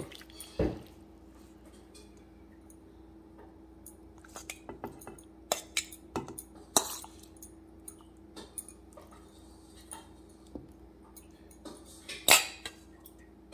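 Metal fork clinking and scraping against a stainless steel mixing bowl and a glass baking dish as marinated chicken pieces are lifted out and laid down, in scattered taps, the loudest one near the end.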